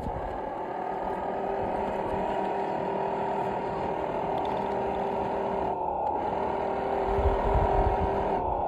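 A 3D-printed 1/8-scale RC model of a Land Rover Discovery 5 crawling through deep snow, giving a steady drone that grows a little louder. There is a low rumble about seven seconds in.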